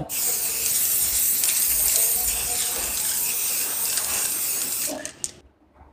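Homemade spray can, pressurised with air from a bicycle pump through a bicycle tyre valve, spraying thinned black paint: a steady hiss for about five seconds that fades and stops near the end.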